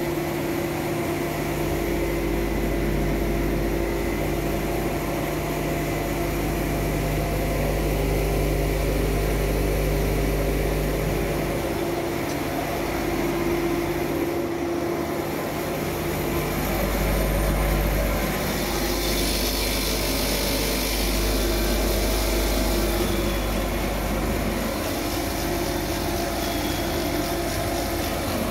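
Vacuum gravity grading machine for Sichuan peppercorns running: a steady mechanical hum and rumble from its fan and vibrating deck, with a brighter hiss for a few seconds past the middle.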